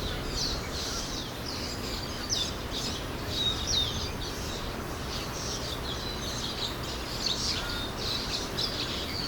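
A flock of birds chirping in the treetops: a dense chorus of many short, quick, high chirps overlapping without pause, over a steady low background rumble. It is an evening gathering, which the uploader takes for birds coming back to roost.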